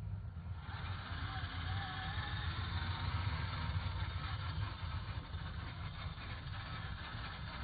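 RC monster truck driving through snow, its onboard sound kit playing a steady simulated engine rumble. A hiss of tyres churning snow comes in about half a second in.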